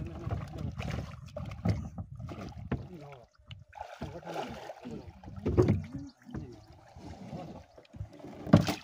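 A fishing net full of live fish is hauled over the side of a small boat: water splashing, the wet net and fish scraping and knocking on the hull, with short bits of men's voices. A sharp knock near the end is the loudest sound.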